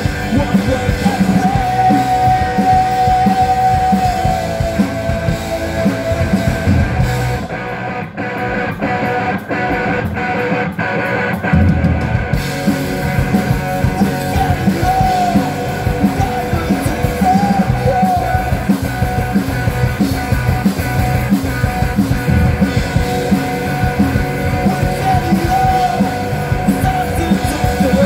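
Punk rock band playing live: loud electric guitars and drums with sung, partly shouted vocals. From about seven and a half seconds in, the drums and cymbals drop out for a few seconds, leaving short, evenly spaced guitar hits, and the full band comes back in around twelve seconds.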